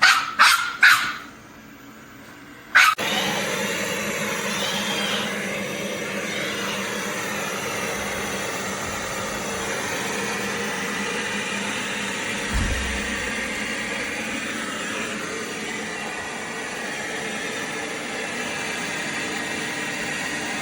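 A dog barks three quick times. About three seconds in, a click starts a steady mechanical whirring hum that keeps on evenly until it cuts off suddenly.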